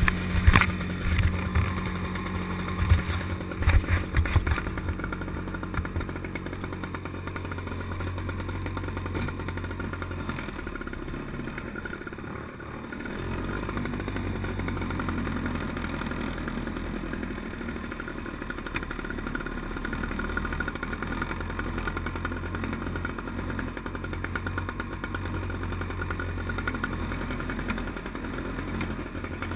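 Vintage Pengor Penguin amphibious ATV's Villiers 9E single-cylinder two-stroke engine running steadily, with loud knocks and clatter over the first few seconds. The engine note dips briefly about twelve seconds in, then carries on steadily as the machine drives.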